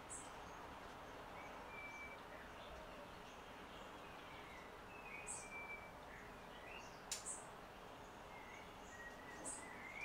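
Faint bird calls, short chirps and whistles, scattered over a steady background hiss, with one sharp click about seven seconds in.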